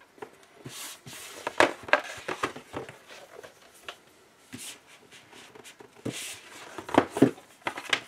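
Thick cardboard game boards for Warhammer Underworlds: Shadespire being slid, flipped and set down on a desk. There is a scraping slide followed by a quick run of sharp taps and knocks, once about a second in and again about six seconds in.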